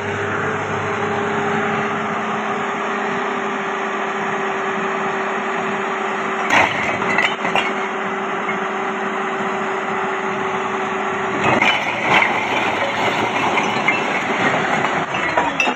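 Tractor engine running steadily to power the hydraulic tipper, with a held humming tone that drops out about three-quarters of the way through. Over it a load of fired bricks slides off the tipping trolley, clattering and cracking against each other, with a burst about halfway and a longer run of tumbling near the end.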